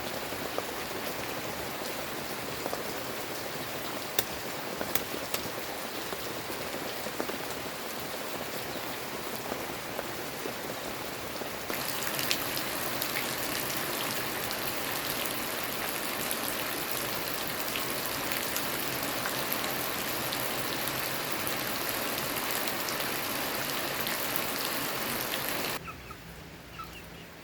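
Steady rain falling, with scattered sharp drop hits. It gets louder and hissier about halfway through, then drops away suddenly near the end.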